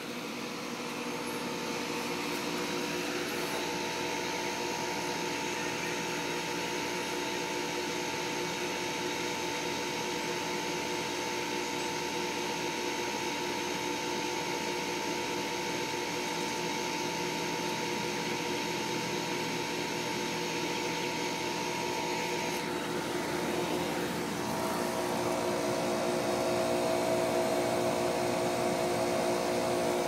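Goodman heat pump outdoor unit running in cooling mode: the steady hum of the compressor over the rush of the condenser fan, with several steady tones. Near the end the high hiss drops away and the hum changes pitch and grows a little louder.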